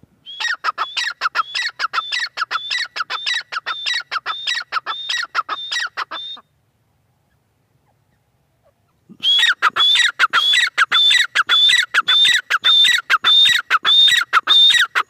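Grey francolin, presented as the female, calling a fast run of sharp, high, downward-sliding notes, a little over two a second. The calling comes in two bouts, with a pause of about three seconds in the middle.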